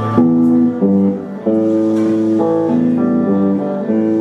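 Stratocaster-style electric guitar picking a slow sequence of ringing chords and notes, a new one about every half second to second.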